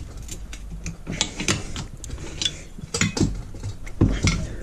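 Irregular metallic clicks, knocks and scrapes of a steel suspension control arm and hand tools being handled and worked on, about a dozen sharp clinks with the loudest near the end.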